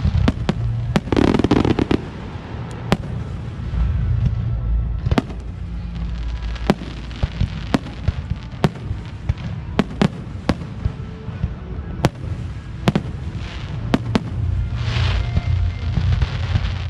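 Aerial fireworks bursting: a steady run of sharp bangs at irregular intervals over a low rumble, with two dense crackling volleys, one about a second in and one near the end.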